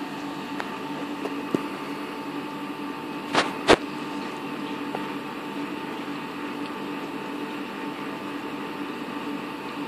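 Steady mechanical hum of reef aquarium equipment, pumps running and water circulating, with a couple of held tones in it. Two sharp clicks close together, about three and a half seconds in.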